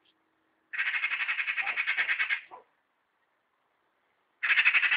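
Eurasian magpie chattering: a harsh, rapid rattle in two bursts, a long one about a second in and a shorter one starting near the end. It is the magpie's alarm chatter, scolding the cat close by on the fence.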